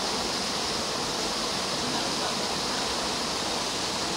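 Steady rushing ambient noise, even in level, with no distinct animal calls or knocks.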